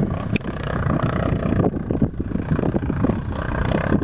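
Honda XR650R dirt bike's single-cylinder four-stroke engine running as the bike is ridden on a dirt hill track, with wind buffeting the microphone.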